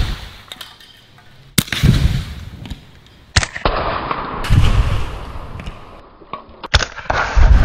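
Several sharp shots from a Bintac T9 PCP air pistol, each followed by a second or so of rushing rumble as the spray paint cans it hits burst and their spray ignites over the flares.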